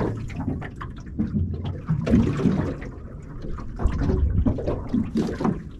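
Small waves lapping and slapping irregularly against the hull of a small aluminium boat.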